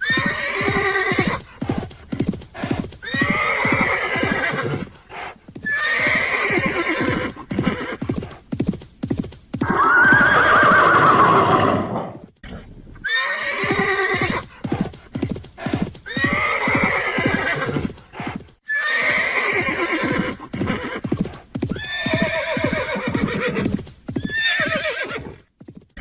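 Horse whinnying again and again, about every two to three seconds, over a steady run of galloping hoofbeats. The longest and loudest whinny comes about ten seconds in.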